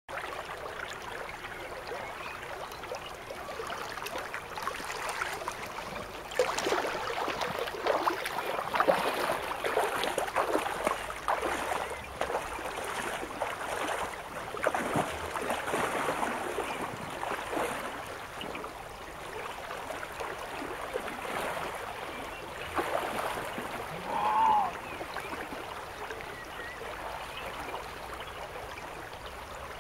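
River water running over a shallow riffle: a continuous rushing with many small irregular splashes and gurgles, busiest through the middle. A single short pitched call sounds about 24 seconds in.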